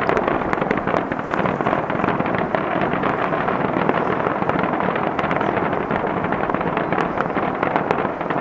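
Fireworks finale: a dense, continuous mass of crackling and popping from many shells bursting together, without letup.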